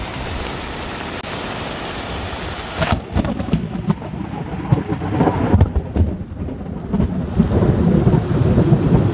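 Rain falling in a steady hiss; from about three seconds in, a low, rolling rumble of thunder rises over the rain and keeps going.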